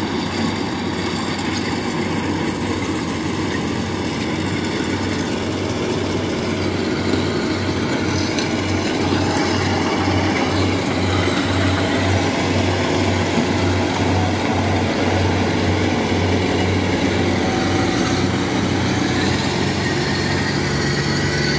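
Rice combine harvester running close by while it cuts and threshes standing rice: a steady, loud engine and machinery drone with a low throb that pulses evenly through the middle stretch.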